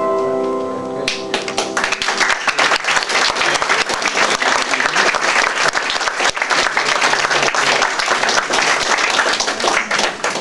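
The song's final chord rings out and stops about a second in. Then an audience applauds steadily with dense clapping.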